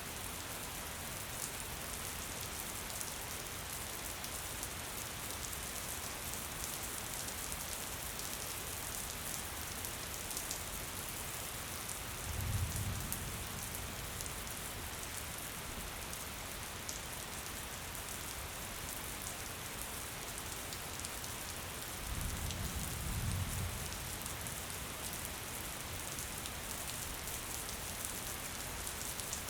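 Gentle rain falling steadily: an even hiss with individual drops ticking through it. A brief low rumble swells up about twelve seconds in and again about twenty-two seconds in.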